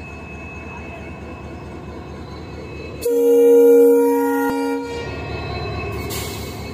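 Indian Railways diesel locomotive running with a steady engine rumble. About three seconds in, its horn sounds loudly for about two seconds.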